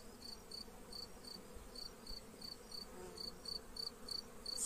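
Faint outdoor insect sounds: a small insect chirping in short, high, evenly spaced pulses about three or four times a second. Under it is a faint low hum of honeybees flying around the hives.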